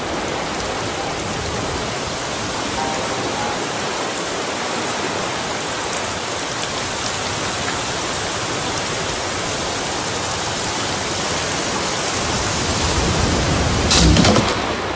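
Steady rushing noise of waves breaking on the beach, with a thump near the end as a surfboard drops onto the sand.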